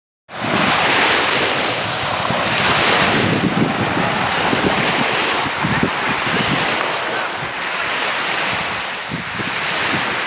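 Waves washing onto a lakeshore, swelling and easing every second or two, with wind buffeting the microphone.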